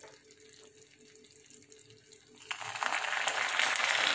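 Milk-and-sugar sauce boiling in a nonstick frying pan, bubbling with a faint hiss until a loud, steady sizzling hiss comes in suddenly about two and a half seconds in.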